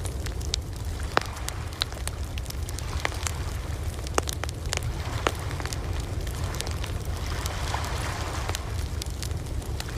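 Campfire crackling, with irregular sharp pops and snaps over a steady low rumble. A soft swell of surf rises and falls about three-quarters of the way through.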